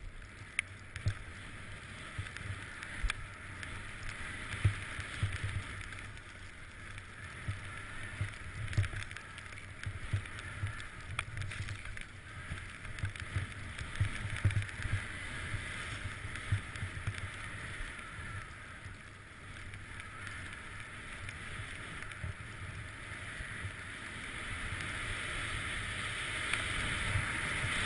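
Skis sliding and carving down a groomed snow run, a steady scraping hiss with occasional sharp clicks, mixed with wind buffeting the microphone in irregular low thumps. It grows louder toward the end as the skier picks up speed.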